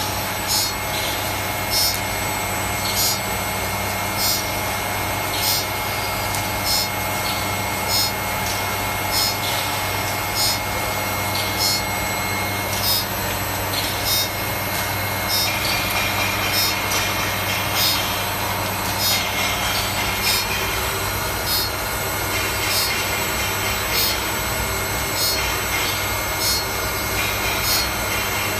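CNC saw-blade sharpening machine grinding the teeth of an HSS circular saw blade with a CBN wheel: a short, sharp grinding stroke repeats evenly about every second and a quarter over the machine's steady hum.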